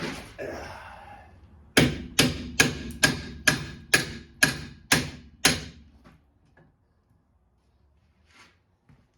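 A hand hammer striking a seized rear wheel hub assembly on a steel-to-aluminium knuckle nine times, about two blows a second, each with a short metallic ring, to shock the corroded hub loose.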